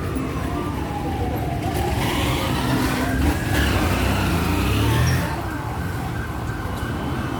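An emergency vehicle siren wailing, its pitch slowly falling, rising and falling again, over the rumble of street traffic, which is loudest in the middle.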